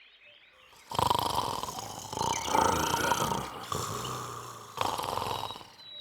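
Cartoon bear snoring while asleep: one long snore, then a shorter one near the end.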